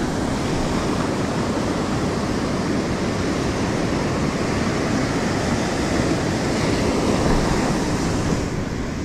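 Surf washing up over the sand at the water's edge: a steady rush of breaking waves and foam that swells a little about seven seconds in.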